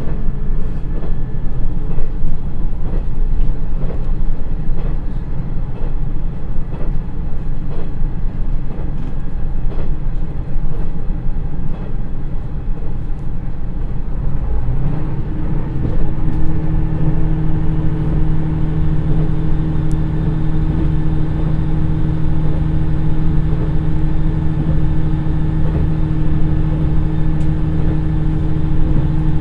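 Inside a KiHa 110 diesel railcar at speed: wheel and rail noise while the train coasts. About halfway through, its Niigata DMF13HZA turbo-diesel engine comes back on power in second direct-drive gear with a steady drone.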